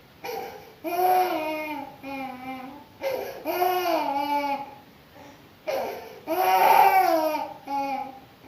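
A baby crying in a run of short cries, about eight of them, each a second or less, the pitch rising and falling within each cry. The loudest comes near the end.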